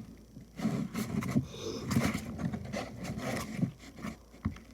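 Glue slime being stirred in a bowl: irregular scraping and rubbing strokes.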